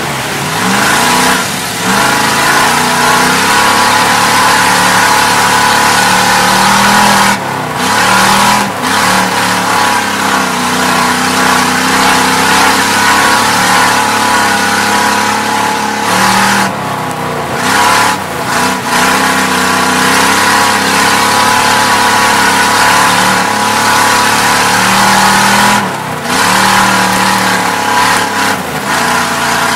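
Oldsmobile 350 V8 race car heard from inside the cab, running hard at high revs with its note rising and falling. The driver lifts briefly off the throttle several times, typical of backing off for the turns of an oval.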